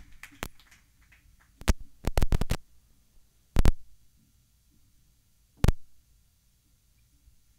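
A handful of sharp, separate clicks and knocks: one early, a quick cluster about two seconds in, one near the middle and one about two-thirds through, with near silence between them.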